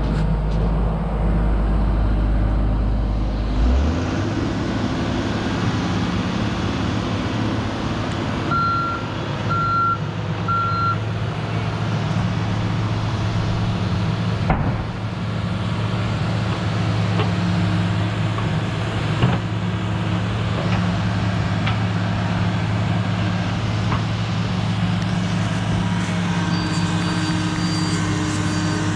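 Excavator's diesel engine running steadily under work, its note changing about four seconds in. Three short beeps of a backup alarm come about a third of the way in, and there are a couple of sharp knocks later on.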